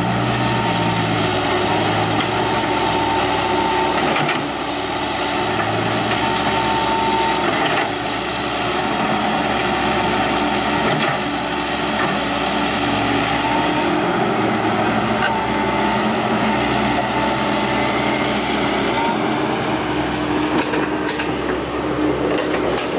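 Diesel engines of an excavator and a dump truck running steadily under work, with a faint high whine that comes and goes every few seconds.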